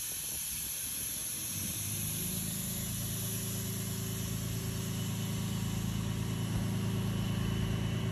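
Flatbed tow truck's engine idling: a steady low hum that comes up about two seconds in and grows slowly louder.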